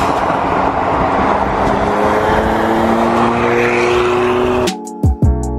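Car engines and heavy road and wind noise at highway speed, with an engine note that rises steadily over the second half as a car accelerates. Music with a beat and deep sliding bass cuts in near the end.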